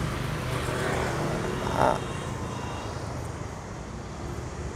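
Road traffic going by: a passing vehicle's engine and tyres grow louder over the first two seconds, with a short louder moment near two seconds in, then fade to a steady low hum of traffic.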